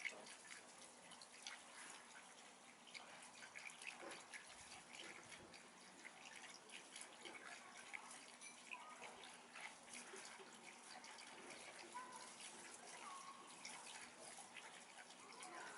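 Faint garden ambience: scattered soft ticks and short chirps, with a few brief call-like notes near the end.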